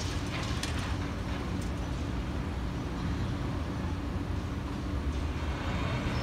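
Crane engine running steadily with a low drone, with a few faint clicks in the first two seconds.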